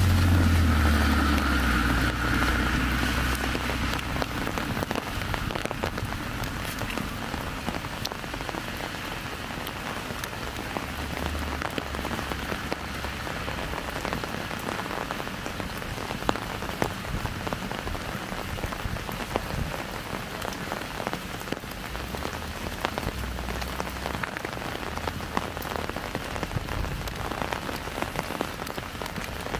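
Light rain falling steadily, with many sharp drops ticking on an umbrella overhead. A low rumble of passing traffic fades out over the first few seconds.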